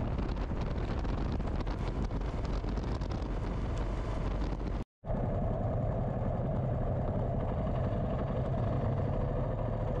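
Moto Guzzi V-twin motorcycle under way, engine running steadily with wind and road noise. The sound cuts out briefly about halfway through, then the engine carries on with a steadier drone.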